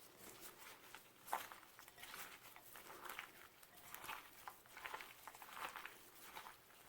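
Hands squeezing and rubbing torn flatbread pieces that have been coated in olive oil and berbere. The sound is faint, soft rustling strokes about once a second, with a sharper tap about a second in.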